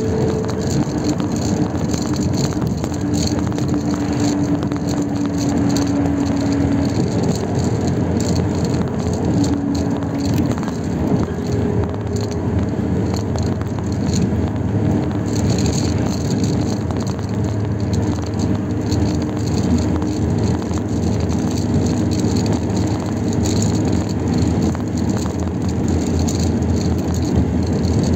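Steady road and engine noise of a vehicle travelling at highway speed, with a low drone and a changing hum.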